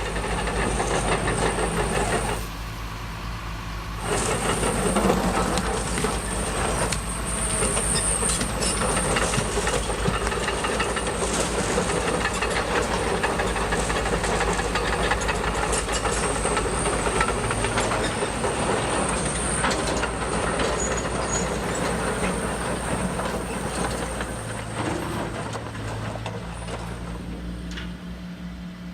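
Radio-controlled model construction machines working: a steady motor and hydraulic-pump hum under a dense clatter of metal parts and material. It drops back for a couple of seconds about two seconds in, then fades near the end.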